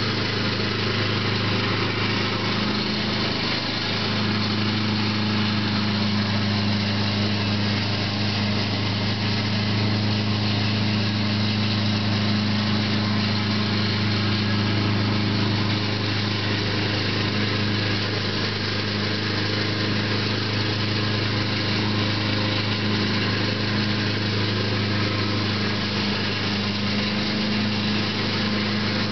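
Lawn mower running steadily at one constant speed while mulching leaves, a loud, even hum that doesn't change.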